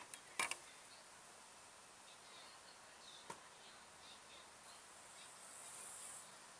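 A small paper fire in the open, mostly quiet, giving one sharp snap about half a second in and a fainter crack a little after three seconds, over faint high chirping in the background.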